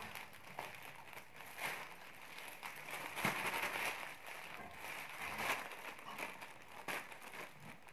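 Scissors cutting open a plastic courier mailer bag, the thin plastic crinkling and rustling as it is handled, with several short sharp snips spread through.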